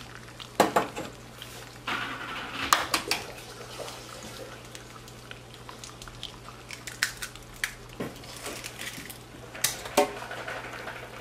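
Eggs being cracked one by one against a small ceramic bowl and tipped into a skillet: scattered sharp taps and clinks of shell and bowl, in small clusters. Each egg goes into the bowl first so a bad one can be caught before it reaches the pan.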